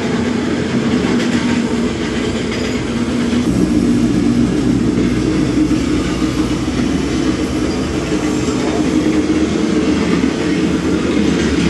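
Recorded sound of a railway car rolling on the rails: a steady rumble and rattle played back inside a railway post office car exhibit.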